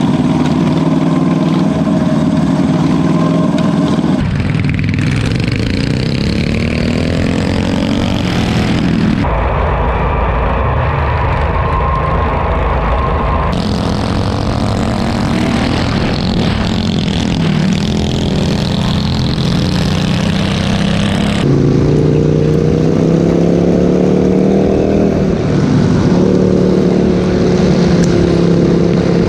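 Racing lawnmower engines running hard, their pitch rising and falling as they accelerate and back off through the turns. The sound changes abruptly several times.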